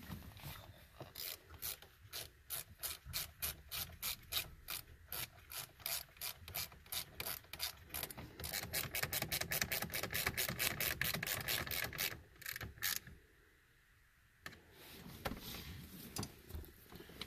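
Hand socket ratchet clicking as a screw is turned. At first the clicks come in short strokes, then a faster, steadier run of clicks follows, which stops about 13 seconds in.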